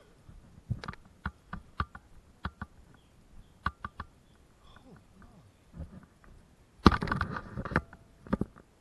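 Footsteps in rubber boots on a narrow wooden plank boardwalk: scattered irregular knocks on the boards, with a louder, longer scuffing noise about seven seconds in.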